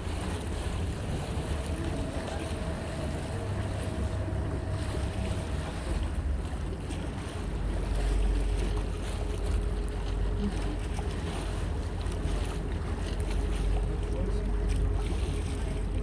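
Small passenger ferry's engine running under way, a steady low drone with water and wind noise over it. About halfway through, the engine note drops lower and grows a little louder, and a faint hum drops in pitch with it.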